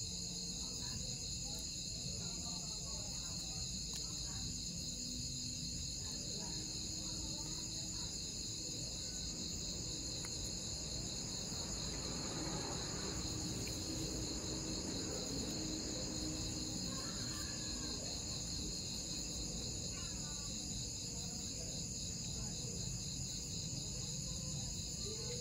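Steady night chorus of crickets and other insects: a continuous high-pitched trill that never breaks, over a faint low background hiss.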